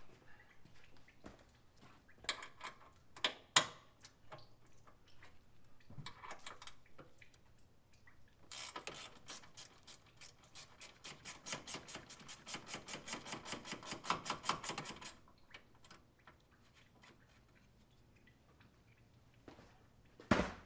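Hand tools working on a truck engine. There are a few sharp metal clicks and knocks, then a run of rapid, even clicking of about six a second lasting several seconds, as a ratchet wrench is worked on a fastener. Another sharp knock comes near the end.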